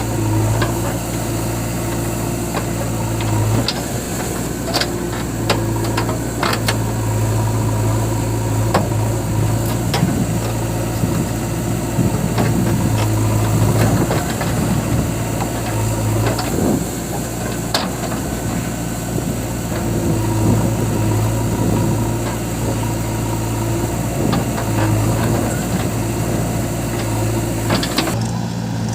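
Heavy diesel engine running steadily, with scattered sharp clanks over it.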